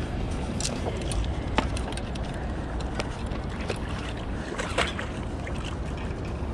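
Hooked black sea bream splashing and thrashing at the water's surface as it is drawn into a landing net: a few sharp splashes and knocks over a steady low rumble.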